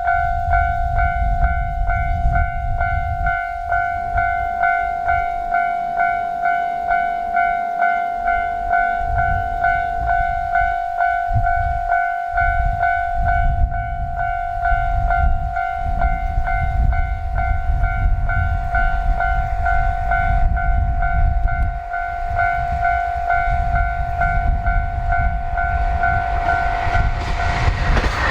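Japanese railway level-crossing warning bell ringing as a steady, repeating electronic ding, about two strikes a second, over a low rumble. Near the end the bell stops and the rising noise of the arriving JR Hokkaido KiHa 261 series diesel limited express takes over.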